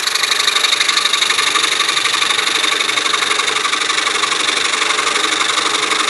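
DeWalt scroll saw running steadily, its blade stroking fast up and down as it cuts through a taped stack of wood layers.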